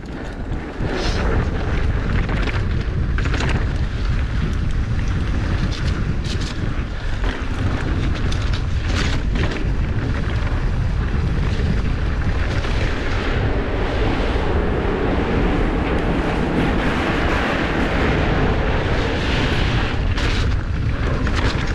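Wind buffeting the camera microphone and knobby tyres rolling over a wet dirt trail during a fast mountain bike descent: a steady low rumble, broken by scattered knocks and rattles from the bike.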